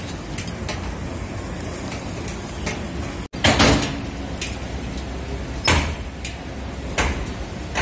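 Steady low rumble and hiss of a street food stall, with three short sharp noises, the loudest about three and a half seconds in; the sound breaks off for an instant just before it.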